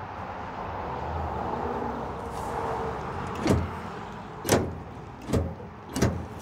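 Controls of a 1990 Cushman Titan electric shop truck being worked by hand: four sharp clunks about a second apart, after a few seconds of steady background noise.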